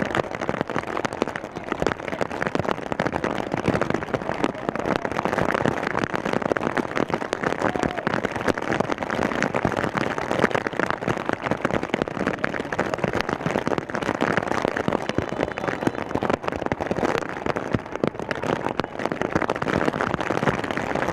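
Rain falling, with a dense crackle of drops striking a surface close to the microphone, steady throughout.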